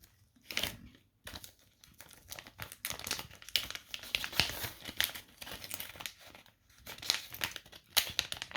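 Packaging crinkling and rustling as it is handled and pulled at, in irregular crackles that grow busier from about two seconds in.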